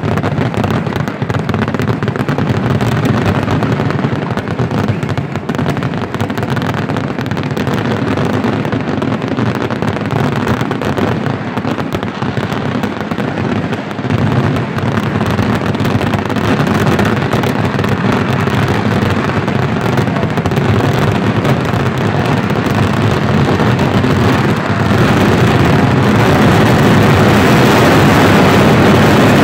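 Kerala temple-festival fireworks (vedikkettu) going off at full intensity: a dense, unbroken barrage of firecracker explosions merging into one continuous din, growing a little louder near the end.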